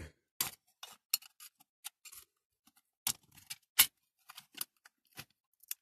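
Irregular small clicks and scrapes of metal parts on a die-cast Dinky toy fire engine as a stuck part is worked loose by hand.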